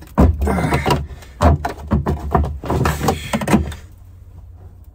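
Screwdriver being knocked and levered against the fuel pump module in the tank opening: a quick run of clattering knocks and scrapes that stops about three and a half seconds in.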